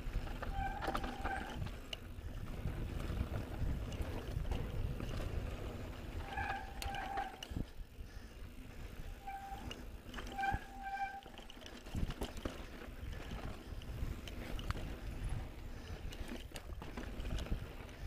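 Mountain bike rolling down a rocky trail: a steady low rumble of tyres and wind on the microphone, sharp knocks as the bike goes over rocks, and short squeals from the BB7 mechanical disc brakes in a few bursts as the rider brakes.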